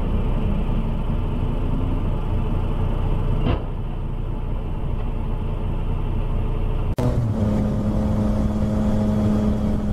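Car driving in traffic, recorded by a dashcam: steady road and engine noise. About seven seconds in the sound cuts abruptly to another driving recording with a steady engine hum.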